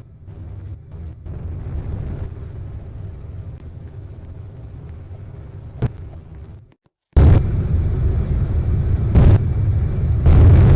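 A motor-driven machine running with a loud, steady rumble. A sharp click comes near the sixth second, the sound cuts off abruptly, and it resumes louder, with surges.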